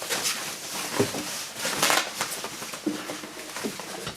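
Plastic wrapping rustling and crinkling as it is pulled off an electronic keyboard, in uneven crinkles with a sharper knock about a second in.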